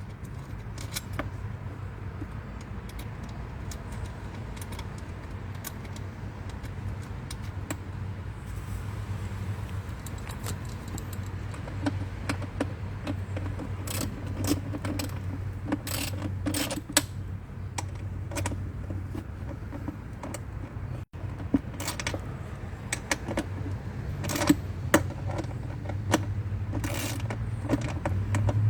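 Small metal clicks and clinks of nuts, washers and a wrench being worked on a bolt, scattered irregularly and growing busier in the second half, over a steady low hum.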